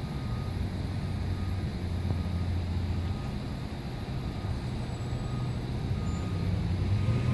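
A steady low engine rumble, growing louder near the end.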